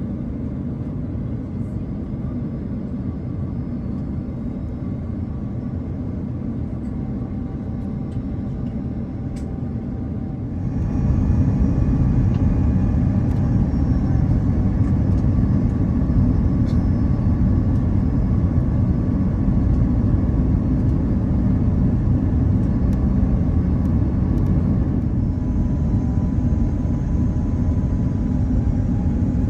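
Airbus A330-300 cabin noise on approach: the steady low rumble of the engines and airflow, with a few faint steady tones above it. About ten seconds in it steps up abruptly and stays louder.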